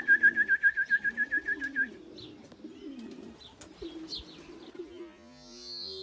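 Racing pigeons cooing, low and wavering, with short high chirps. A loud, fast trill of about a dozen even pulses, sliding up at its start, sounds for the first two seconds, and music begins about five seconds in.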